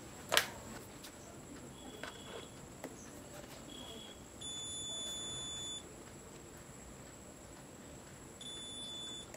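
Digital multimeter's continuity buzzer beeping as the probes touch points on the amplifier board, signalling a low-resistance path between them: a few brief chirps, then a steady beep of over a second near the middle and a shorter one near the end. A sharp click about half a second in.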